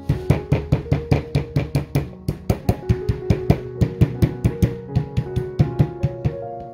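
Wooden meat mallet pounding seasoned pork slices on paper towel over a wooden board, a quick run of dull thumps about four or five a second that tenderizes the meat, stopping shortly before the end. Light background music plays under it.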